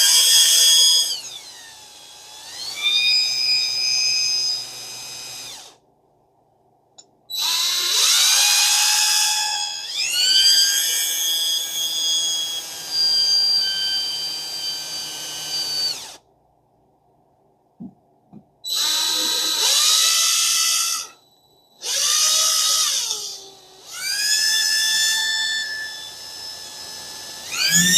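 Electric drill spinning a chucked fishing-reel part, run in about five bursts. Each burst opens with a rising whine as the motor spins up, holds steady, then stops, with short pauses between; the longest runs last several seconds.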